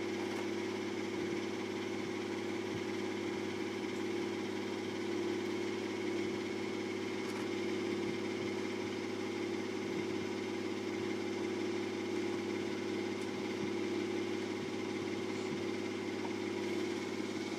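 A steady mechanical hum from a running motor, unchanging throughout, with a few faint clicks.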